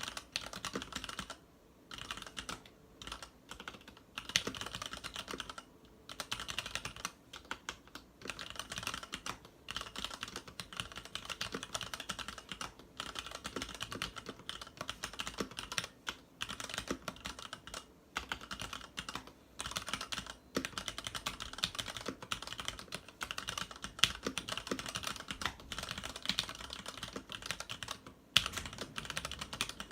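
Continuous fast typing on a Varmilo VA87M tenkeyless mechanical keyboard with Cherry MX Red linear switches and PBT keycaps: a dense stream of key clacks broken by a few short pauses.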